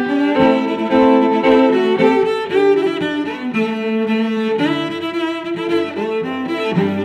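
Background music led by bowed strings such as violin and cello, playing a slow melody of held notes.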